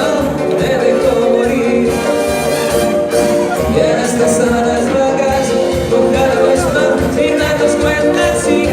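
Live band music in a Latin dance style, played loud with a steady beat and little or no singing.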